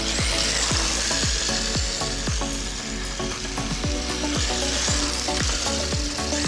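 Electric RC drift car running on hard plastic tires, a steady scraping hiss of the tires sliding over the ground. Under it runs a fast series of low thumps that each drop in pitch, a few per second.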